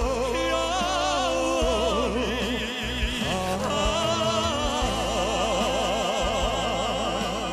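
Two male voices singing a Korean trot ballad duet, drawing out long notes with wide vibrato over band accompaniment. There is a short break about three seconds in before another long held note.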